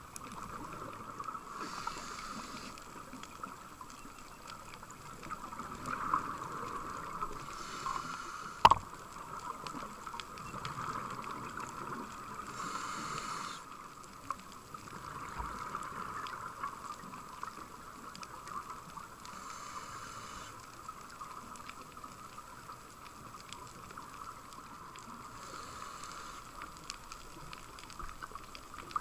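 Underwater sound of a scuba diver breathing through a regulator: a rush of exhaled bubbles about every six seconds, over a steady hiss with faint crackling clicks. One sharp click about nine seconds in.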